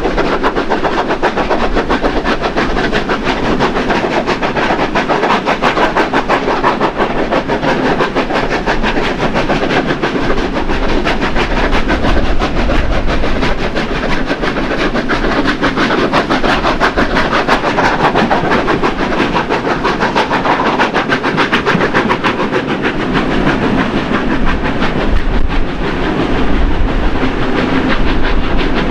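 Steam locomotives 3016 and 3642 double-heading a train uphill, their exhaust chuffing under load, heard from an open carriage window together with the steady rattle and clatter of the carriages' wheels on the rails.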